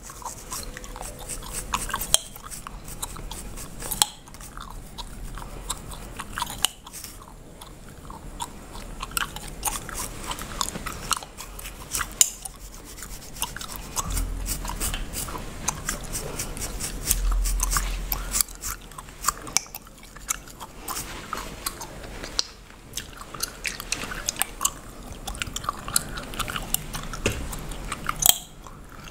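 Bubblegum being chewed and cracked close to the microphone: frequent sharp, irregular snaps over wet chewing.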